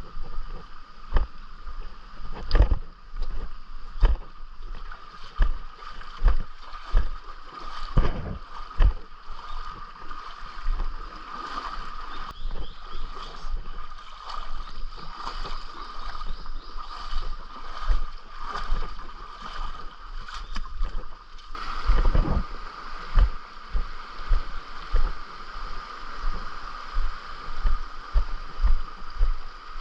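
Water splashing and sloshing on a river, with frequent irregular thumps about once or twice a second.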